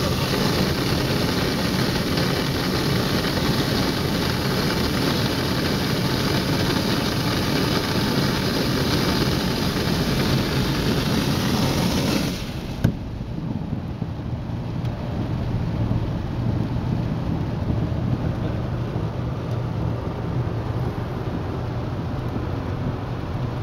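Automatic car wash heard from inside the car's cabin: water jets spray hard onto the body and windscreen, then cut off suddenly about halfway through. After that comes a quieter swishing of the rotating brushes scrubbing the side windows and windscreen, over a steady low machinery hum.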